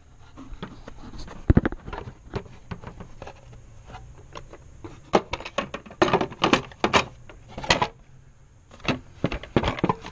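Irregular hard plastic clicks and knocks as an engine's air intake housing is worked and pushed into place by hand, with a sharper knock about a second and a half in and clusters of clatter in the middle and near the end.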